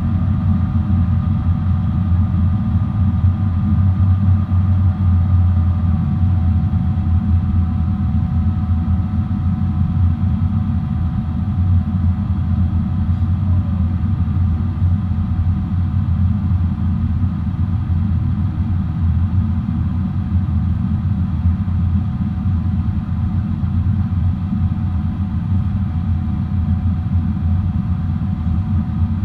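Steady low drone of a Boeing 777-300's jet engines heard inside the cabin in flight, with faint steady whining tones above the rumble and a brief downward-sliding tone about halfway through.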